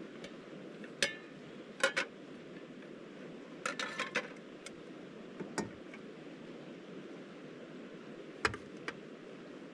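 Scattered light clinks and knocks of hard objects being handled, some in quick pairs or small clusters, over a steady low rushing background.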